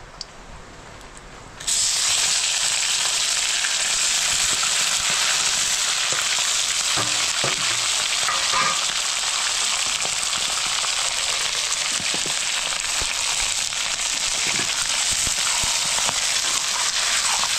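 Food hitting hot oil in a wok, breaking into a loud, steady sizzle about two seconds in, with a few scrapes of stirring later.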